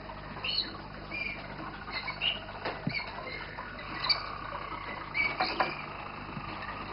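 Roller canaries singing from wooden song boxes: many short high chirps and calls, with a held lower rolling trill for about two seconds past the middle. A couple of sharp clicks come in between.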